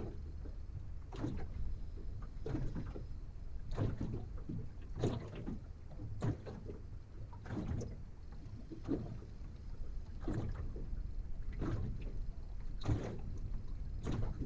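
Water slapping against the hull of a small boat in a regular rhythm, about one slap every second and a bit, over a steady low rumble.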